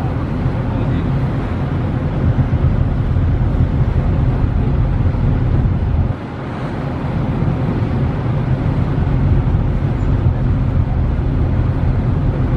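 Steady low rumble of a ferry under way heard from on board, engine noise and wind on the microphone together, with a brief dip in the deepest part of the rumble about halfway through.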